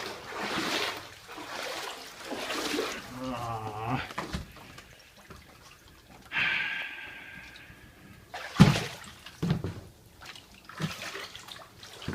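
Floodwater sloshing and splashing in uneven swishes, with a sharp splash or knock about two-thirds of the way through.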